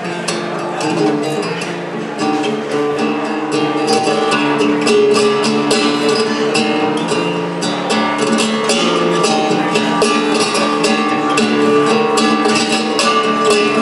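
Solo acoustic guitar played live: a melody with quick strummed chords, the strumming getting denser about four seconds in.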